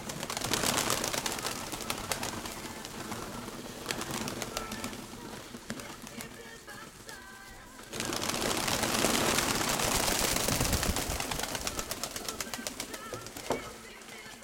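Domestic pigeons cooing, over two long stretches of rushing noise, the second louder and starting about eight seconds in.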